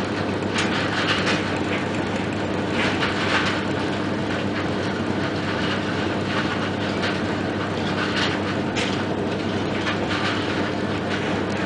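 Colliery coal-washing plant machinery and conveyors running: a steady mechanical hum with irregular clattering over it.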